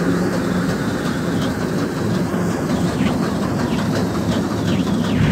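New Holland combine harvester working under load, cutting and threshing red fescue grass seed: a loud, steady drone of engine and threshing machinery with a low hum under a dense hiss.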